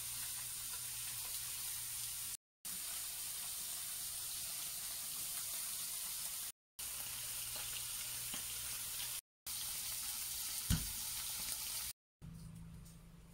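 Steady hissing noise, broken off briefly by several cuts, with a single low thump about ten and a half seconds in.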